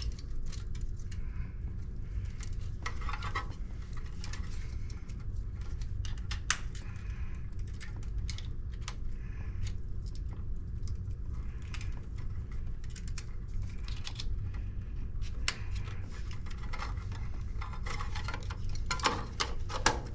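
Scattered clicks and light clatter of hard objects being handled, over a steady low hum, with small flurries of clicks about three seconds in and again near the end.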